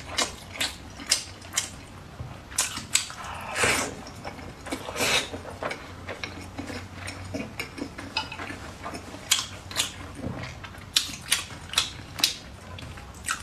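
A person chewing food close to the microphone: irregular wet mouth clicks and smacks, several a second, with a couple of longer, wetter chewing sounds about four and five seconds in.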